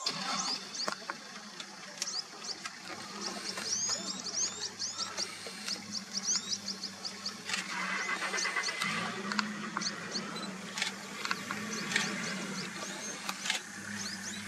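Many birds chirping in quick, short calls, over a low steady hum.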